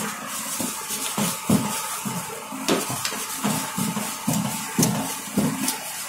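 Thin sheet of roll dough slapped, pressed and flapped against a steel counter by hand: a run of soft, uneven thumps about two a second, with light clatter on the metal.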